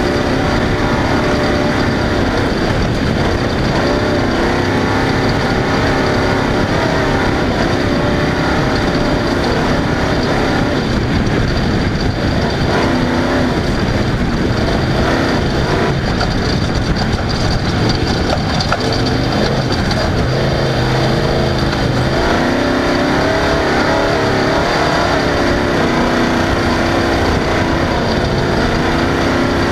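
Off-road race vehicle's engine running at race pace, its pitch rising and falling again and again as the throttle comes on and off, over a constant rush of noise.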